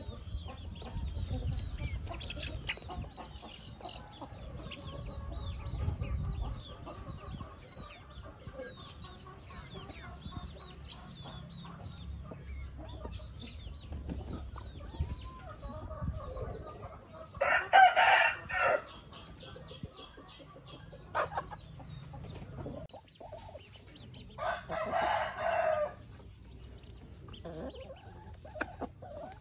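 A rooster crowing twice, about seven seconds apart, each crow about a second and a half long.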